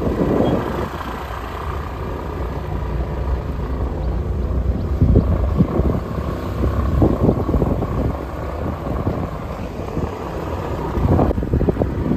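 Wind buffeting the microphone of a moving motorbike, in gusts, over the steady hum of its engine.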